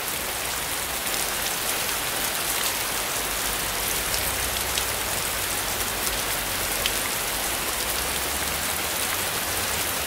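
Steady heavy rain falling on a wet road and surrounding surfaces, an even hiss with an occasional single drop hitting close by.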